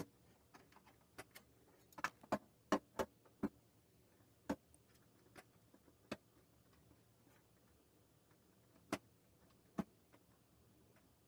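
Sparse, irregular clicks and taps of a slow cooker's plastic display panel and chrome housing being handled and pressed together, about a dozen sharp ticks, bunched in the first few seconds and sparser later.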